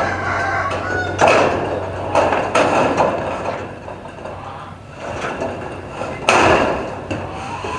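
Irregular clanging bangs and rattles of corrugated metal roofing sheets being handled and walked on, with a loud crash about six seconds in.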